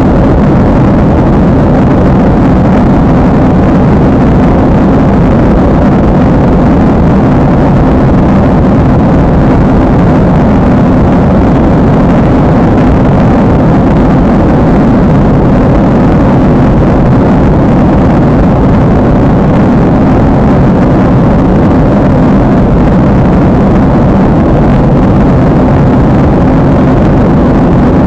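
Steady drone of an airliner cabin in flight, a loud, unchanging rush of engine and airflow noise.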